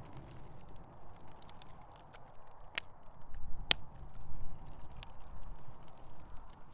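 Scrap-wood fire crackling, with scattered sharp pops; the two loudest come a little before the middle.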